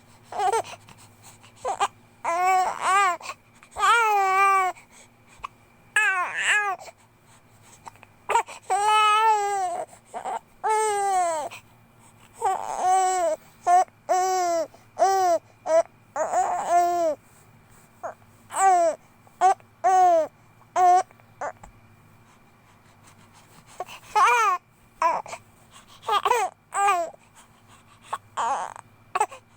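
A two-month-old baby vocalizing in short, wavering cries and coos, one after another, with a pause of a couple of seconds about two-thirds of the way through.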